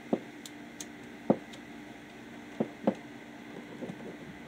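Handling noise of a circuit breaker and copper wire being worked into its terminal by hand: a few dull knocks, the loudest about a second in, with small sharp clicks in the first second and a half, over a low steady hum.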